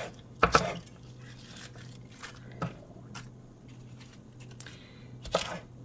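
Knife chopping Napa cabbage on a wooden cutting board: two sharp knocks just after the start and another near the end, with quiet rustling and small clicks of the leaves between.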